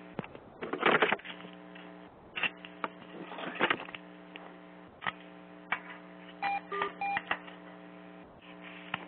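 Steady electrical hum, with scattered knocks and rustles and two short electronic beeps about two-thirds of the way through.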